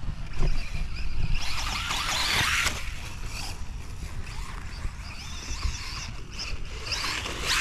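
Rushing, scraping hiss of soft sand being churned and sprayed, loudest from about one and a half to two and a half seconds in, over a steady low rumble of wind on the microphone.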